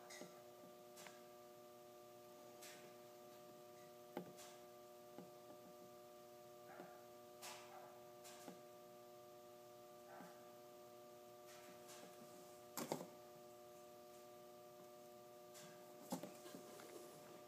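Near silence: a faint steady hum of several tones, with scattered soft clicks and taps. The loudest clicks come about 13 seconds in and again about 16 seconds in.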